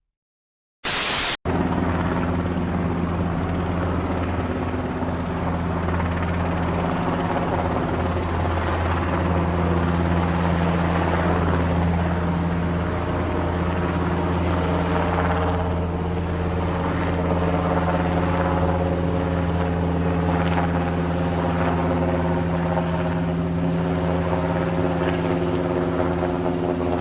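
A steady mechanical drone: a strong low hum under a hiss that holds on with only slight changes. It follows a short loud burst about a second in.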